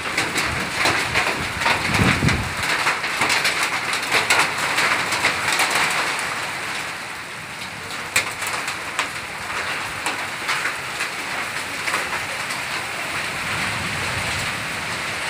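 Hail and heavy rain falling, with many hailstones ticking sharply on surfaces through a dense hiss of rain; heaviest for the first six seconds, then a little lighter.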